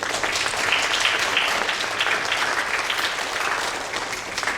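Audience applauding, a dense patter of many hands clapping that swells in about a second in and eases slightly near the end.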